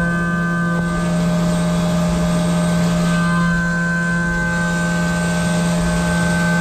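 Syil X7 CNC mill cutting metal under flood coolant: a steady spindle-and-cutter hum with a ringing cutting tone and higher overtones held evenly, over the hiss and splash of the coolant spray.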